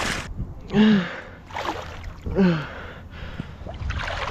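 A man's short voiced grunts and gasps of effort, several in a row, between hissing breaths, over a low wind rumble on the microphone.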